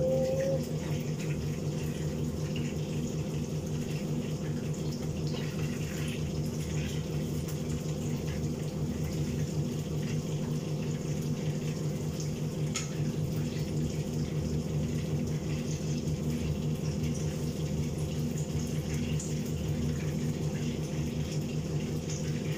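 Chicken frying in oil in a pan on a gas stove, sizzling over a steady hum from the kitchen range hood's exhaust fan, with a few light clicks of a utensil against the pan.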